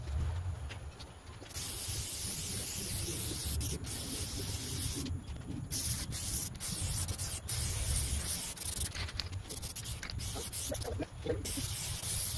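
Aerosol can of spray adhesive hissing as it is sprayed onto a headliner backboard. It comes in long sprays with brief pauses: starting about a second and a half in, breaking off briefly around five seconds and again near eleven seconds.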